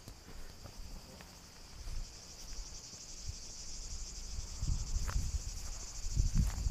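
Insects chirring steadily in a continuous high-pitched, finely pulsing drone. Low muffled thumps and rumble come in over it about halfway through and again near the end.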